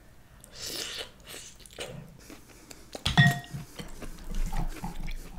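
Close-miked eating of mussels: a slurp from a mussel shell about half a second in, then wet chewing and mouth clicks. About three seconds in, a sharp clink against the glass bowl rings briefly.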